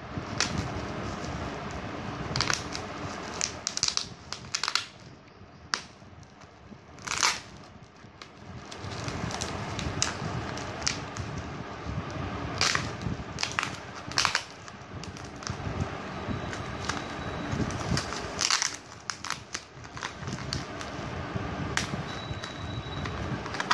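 Plastic courier packet lined with bubble wrap crinkling and crackling as it is handled and opened, with irregular crackles and rustles throughout.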